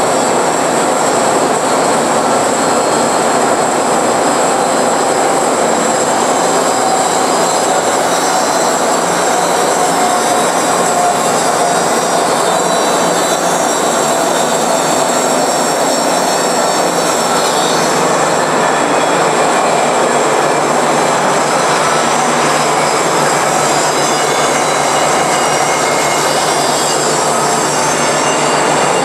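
Industrial horizontal bandsaw cutting through a thick forged aluminum part, with the part fed slowly into the blade: a loud, steady machine noise of blade motor and cutting, with a thin high-pitched whine held throughout.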